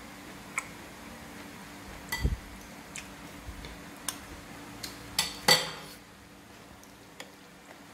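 Metal spoons and forks clinking against china plates and bowls while food is served, a scatter of sharp clinks with the loudest about five and a half seconds in, and a dull bump just after two seconds.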